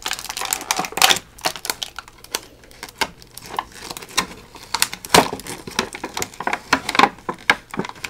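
Thin clear plastic blister packaging being handled, crinkling and crackling in irregular sharp clicks.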